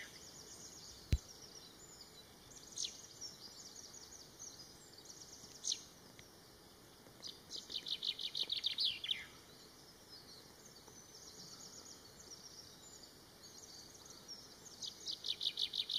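Common chaffinch singing: a rapid run of repeated high notes about seven seconds in, ending in a falling flourish, with another song phrase starting near the end and a few single short notes between. A single sharp click about a second in.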